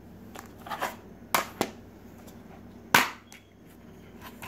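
Plastic DVD case handled on a tile floor: a few clicks and knocks, then one loud snap about three seconds in as the case is pulled open.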